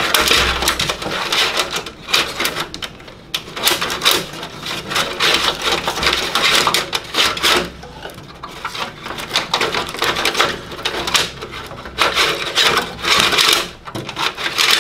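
Old Morris Minor wiring loom being pulled out of the engine bay by hand: wires and connectors rustling, scraping and clicking against the metal body panels in irregular bursts.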